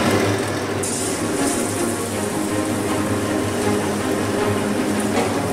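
Batter-dipped paneer slices deep-frying in hot oil in a kadai: a steady sizzle that grows brighter about a second in as the pieces go into the oil.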